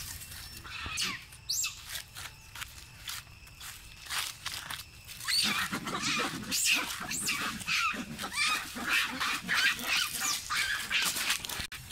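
Long-tailed macaques shrieking: one call about a second in, then a dense run of short, high squeals from about halfway through to near the end.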